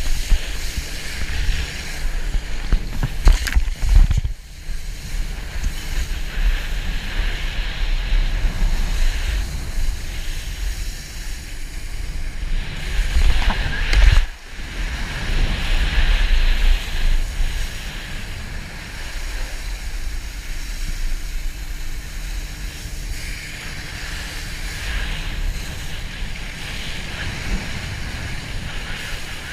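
Wind buffeting the action camera's microphone over the rushing hiss of spray as a wakeboard is towed across the water. Louder surges of spray come around three to four seconds in and again around fourteen seconds in.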